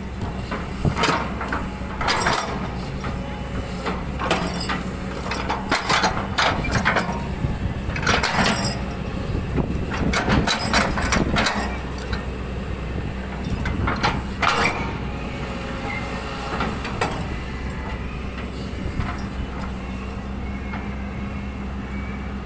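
Kobelco SK200 excavator's diesel engine running steadily, with a series of sharp knocks and scrapes over roughly the first fifteen seconds from the machine working soil, then just the engine.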